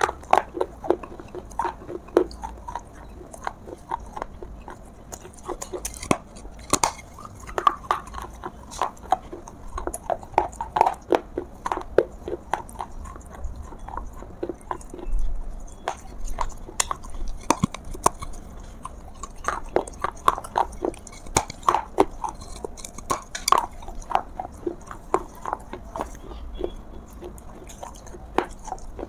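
Close-up biting and chewing of pieces of a large clay pot (matka) soaked in water for 24 hours: irregular crunches and sharp cracks as bits of the fired clay break off between the teeth.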